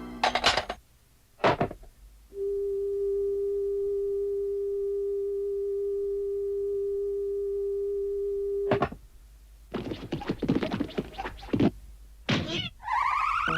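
Cartoon telephone sound effects: two clicks, then a steady telephone dial tone for about six seconds, cut off by a click. After it comes scratchy electronic crackling with chirps, and a rising warbling sweep near the end.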